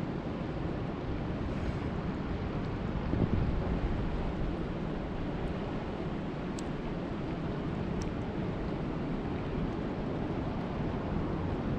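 Steady rush of lake water and wind, with wind rumbling on the microphone; it swells briefly about three seconds in, and two faint ticks come through later.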